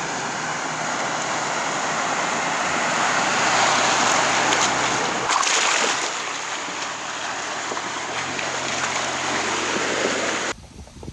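Ford Bronco Everglades fording a flooded, muddy trail: a steady rush of splashing water churned up by the tyres, with the engine's low hum underneath. The sound cuts off suddenly near the end.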